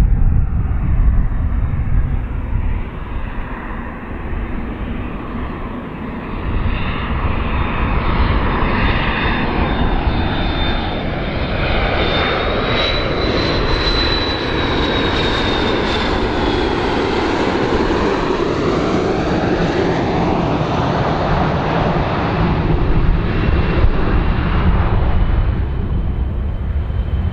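McDonnell Douglas MD-80-series jetliner on landing approach, its rear-mounted turbofans giving a steady jet rumble. Its high whine rises and then falls in pitch as it passes by, about halfway through.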